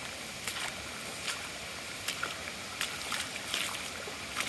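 Floodwater rushing through a yard, an even steady hiss, with several short sharp splashes at irregular intervals.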